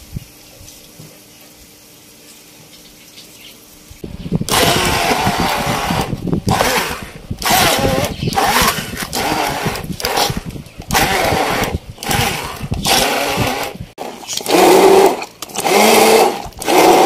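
Electric hand blender whirring in repeated short bursts as it purées chopped tomatoes into paste in a plastic tub. It starts about four seconds in and is switched on and off roughly once a second.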